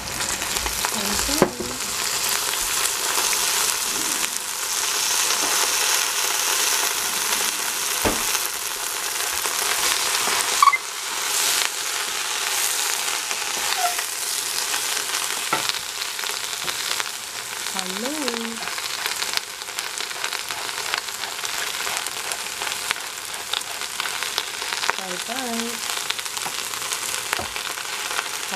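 Napa cabbage sizzling in hot oil in a stainless steel pot as it is stirred with a wooden spatula, a steady frying hiss broken by a few sharp knocks, the loudest about eleven seconds in.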